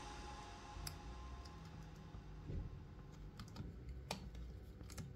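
Faint, scattered clicks and light handling noise from fingers working a flat flex cable and its connector on a laptop mainboard. The sharpest click comes about four seconds in.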